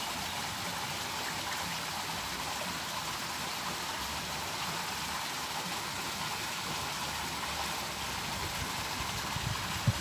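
Steady outdoor background hiss, even throughout, with no distinct events.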